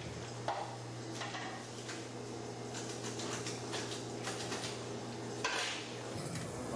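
Scattered clinks and knocks of cups, spoons and pitchers being handled at a coffee stand counter, over a steady low hum.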